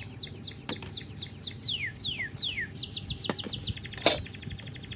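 A songbird singing a rapid series of high notes that each slide downward, several a second, with a few longer downward slides midway and a faster run of notes near the end. A sharp click about four seconds in.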